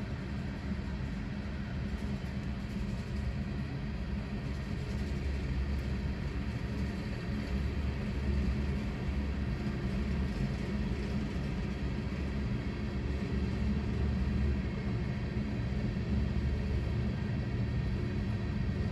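Freight train's tank cars and a boxcar rolling slowly past: a steady low rumble of steel wheels on rail, heard from inside a stopped car.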